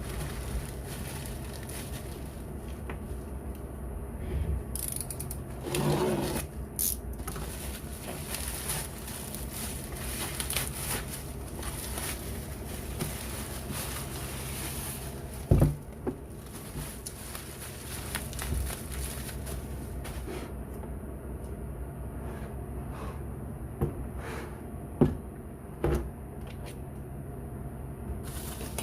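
Handling noises of a product being unpacked: irregular scraping and crackling, with a few sharp knocks, over a steady low hum.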